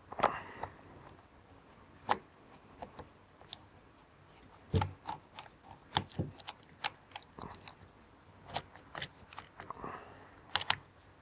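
Screwdriver working the screws out of a Makita cordless reciprocating saw's plastic handle housing: irregular small clicks and knocks of the tool and the plastic shell being handled, a few sharper than the rest.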